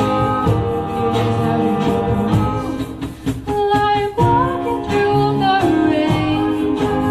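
A pop-rock song with a singer over guitar and band accompaniment. About three seconds in, the accompaniment drops out for about a second, leaving held notes, then the full band comes back in.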